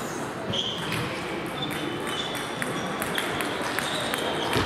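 Table tennis balls clicking off tables and bats from several matches at once, irregular and overlapping, with a hall echo and a low murmur of voices.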